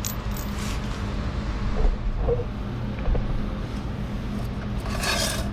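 A steady low mechanical hum, with a few faint knocks and a short hissing burst near the end.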